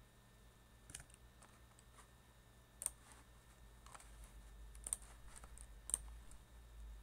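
Faint computer keyboard keystrokes and mouse clicks at irregular intervals, a few of them sharper than the rest, over a steady low hum.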